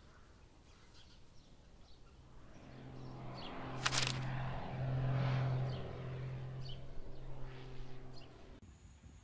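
Intro sound effects: short bird chirps over a low steady hum that comes in several long held stretches, swelling towards the middle and fading near the end, with a sharp swoosh about four seconds in.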